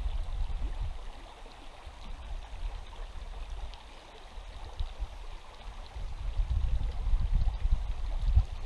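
Steady rush of flowing river water, with uneven low rumbling that grows heavier from about six seconds in.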